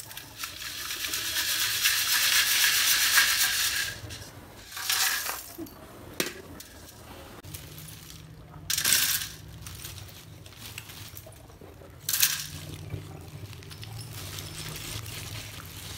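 Roasted fuller's earth (multani mitti) chips rattling in a steel mesh sieve as it is shaken for about four seconds, then several short clattering bursts of the hard clay pieces tipped into the metal sieve, about every three to four seconds.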